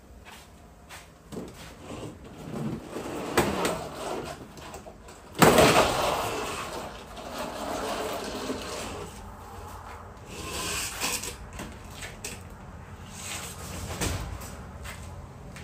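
Siding being torn off a wall: irregular knocks and scrapes, with one loud crash about five seconds in that trails off over a couple of seconds.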